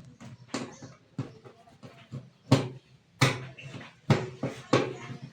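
A string of irregular sharp knocks and taps on a steel-body washing machine's casing, about six in five seconds, as it is put back together.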